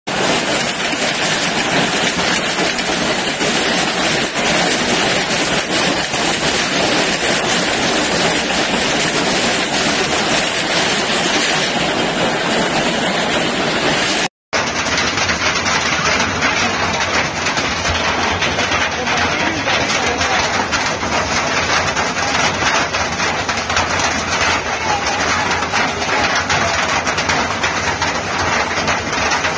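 Hail and rain falling heavily: a loud, dense, steady clatter of hailstones striking the ground and nearby surfaces. It breaks off for a moment about halfway through, then goes on.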